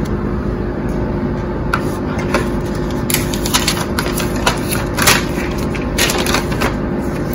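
Paper rustling and crinkling as a printed card and a folded instruction sheet are handled and unfolded, mostly in the second half, over a steady background hum.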